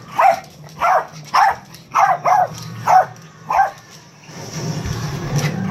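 A pug barks about seven times in quick succession, short sharp barks roughly every half second, then gives a lower, steadier growl for the last second and a half. It is play-aggression barking, the dog riled up in a rough game.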